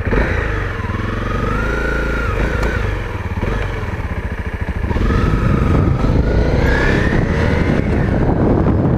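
Dirt bike engine pulling away and accelerating: its pitch climbs, drops back about three seconds in as it shifts up, then climbs again and gets louder.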